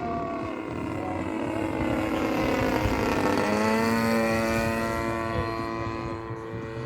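Radio-controlled model airplane engine and propeller flying past. The note slides down in pitch about three seconds in as the plane goes by, then holds steady at the lower pitch.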